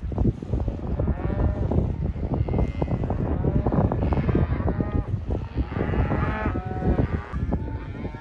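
A herd of cattle on a drive mooing and bawling, many calls overlapping one after another over a steady low rumble.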